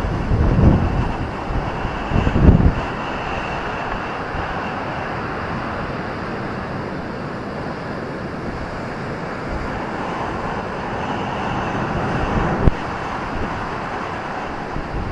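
Ocean surf breaking on a beach as a steady rushing wash, with wind buffeting the microphone in the first few seconds and once briefly near the end.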